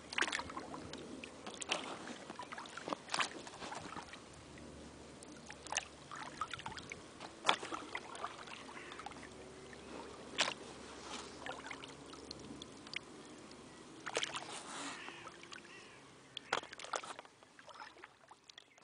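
Paddling an inflatable canoe: the paddle blade dipping and splashing in the water and dripping, with sharp irregular splashes and knocks every second or two over a soft trickle of water, growing quieter near the end.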